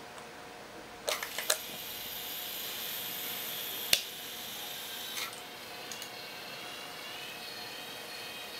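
Small electric motors and gearing of a scale-model Talos launcher's automatic loading system whining as missiles are moved onto the launcher arm, the whine changing pitch about five seconds in. A few clicks come about a second in, and a sharp toggle-switch click on the control box about four seconds in.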